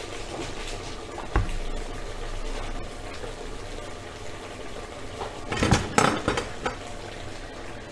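Pot of chicken drumsticks boiling hard in water and marinade, a steady bubbling hiss. A single knock comes about a second in, and a short burst of cookware clatter about six seconds in.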